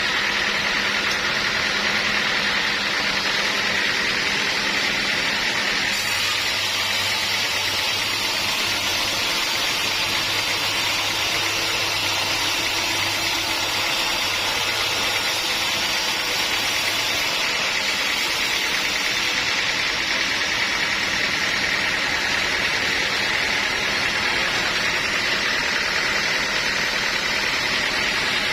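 Sawmill machinery running steadily, a constant mechanical din. A low hum joins in about six seconds in and drops away again around seventeen seconds.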